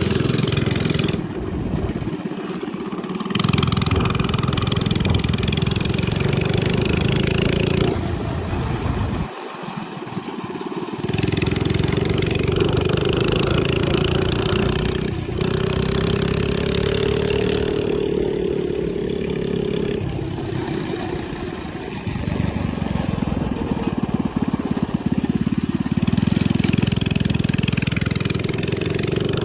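Coleman CT100U mini bike's small single-cylinder engine running through an aftermarket AR Sport exhaust while being ridden, the throttle rolled off and opened again several times: it drops off about two seconds in and again near ten seconds, and the pitch rises around sixteen seconds. Wind rushes across the microphone.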